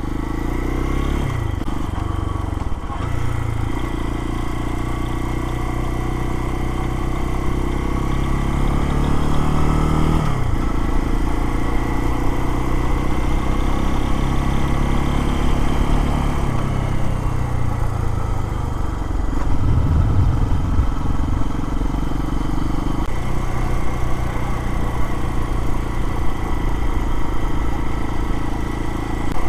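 Lifan KPX250's single-cylinder four-stroke engine running while the bike is ridden. The engine pitch climbs and then drops sharply about ten seconds in, like an upshift, and changes again around sixteen and twenty seconds in.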